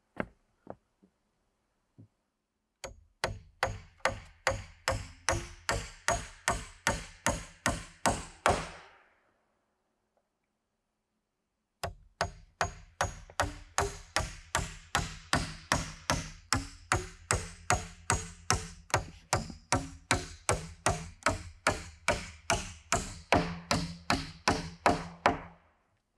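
Hammer driving nails into a wooden wall frame: a run of about fifteen steady blows, a pause of about three seconds, then a longer run of about thirty-five blows, roughly two to three a second.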